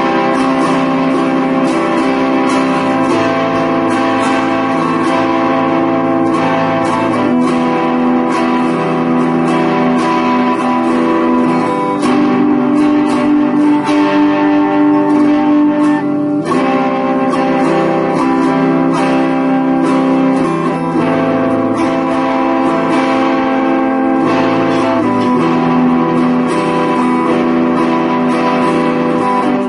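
Guitar playing the chords C major, A minor and E minor in sequence, changing chord about every four to five seconds.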